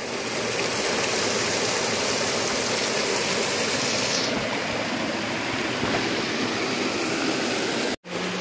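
A stream's flowing water rushing steadily. It breaks off abruptly near the end.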